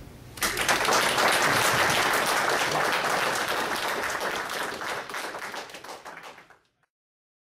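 Audience applauding after a speech, a dense patter of many hands clapping that starts about half a second in, dies away near the end, and is cut off into silence.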